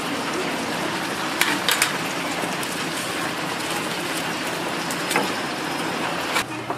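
Kitchen scissors snipping through crisp fried chicken, a few sharp snips around a second and a half to two seconds in and another about five seconds in, over a steady sizzling hiss of deep-frying oil.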